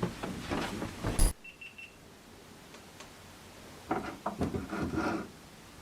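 A sharp click followed at once by three quick, evenly spaced high beeps from a small electronic device, then a few seconds later a cluster of softer sounds.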